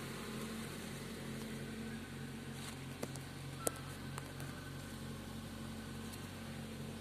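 Steady low hum inside a Maruti Suzuki Baleno's cabin, with a pulsing low drone. A few sharp clicks come a little past the middle, the loudest with a short beep.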